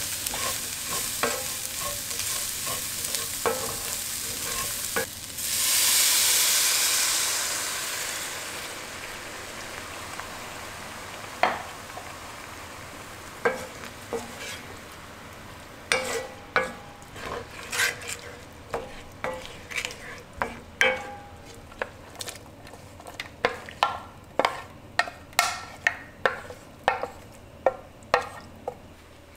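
A wooden spoon stirs and scrapes rice, black beans and corn frying in a pan. About six seconds in, a loud hissing sizzle fades over a few seconds as chicken stock is poured into the hot pan. The second half holds a run of sharp knocks and clinks, many in quick succession.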